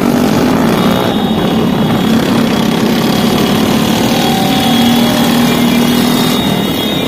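Motorcycle and truck engines running steadily together, a loud continuous engine drone with no break.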